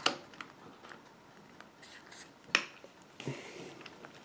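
Hands fitting a plastic chainsaw attachment into a cordless drill's chuck and turning the chuck: a few light clicks and handling scrapes, the sharpest click about two and a half seconds in.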